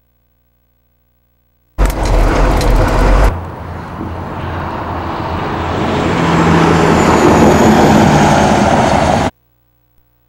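Highway traffic rushing past close by. It starts suddenly with a loud, bass-heavy rumble for about a second and a half. Then comes a steadily building rush of a passing vehicle with a low drone in the middle, which cuts off abruptly near the end.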